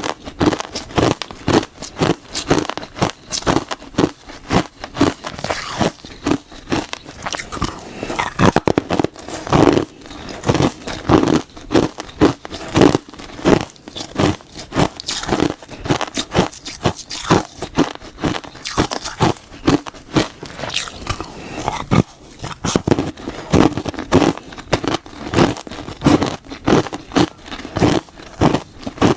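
Close-miked crunching: a person bites and chews something hard and crunchy, with a steady run of loud crunches and chewing.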